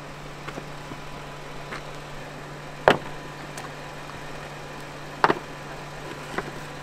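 Jeep Wrangler engine idling steadily, with two sharp knocks of rock on rock, the first about three seconds in and the second about two seconds later, as rocks are stacked behind a rear tire to build it a step over a ledge.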